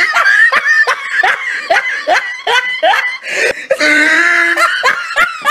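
A person laughing hard in a quick run of short, rising bursts, about three a second, then a longer held vocal cry about four seconds in.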